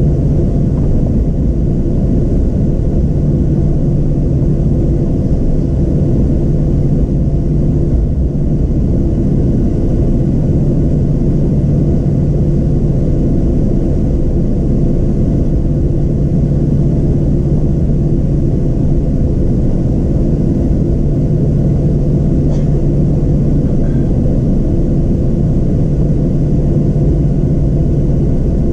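Inside the cabin of a Boeing 737-700 taxiing: the CFM56-7B engines at taxi power give a steady low hum with a droning tone, over a continuous rumble.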